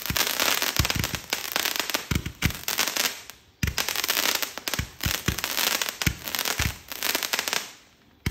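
Multi-shot consumer fireworks cake firing a rapid string of shots, each launch pop followed by crackling tails. The firing breaks off briefly about three and a half seconds in, then resumes and dies down near the end.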